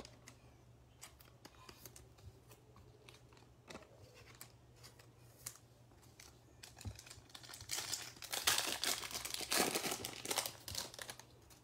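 A foil trading-card pack wrapper being torn open and crinkled, in a run of loud crackling bursts over the second half. Before that, only faint clicks of cards being handled.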